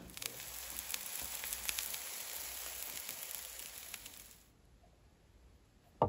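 Food sizzling and crackling in a hot frying pan, stopping suddenly about four seconds in. Near the end there is a short low gurgle from a person's stomach.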